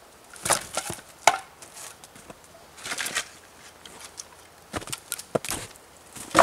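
Split firewood pieces knocking and clattering together as they are picked up and gathered into an armload: a handful of sharp wooden clunks, the loudest about a second in and again at the very end.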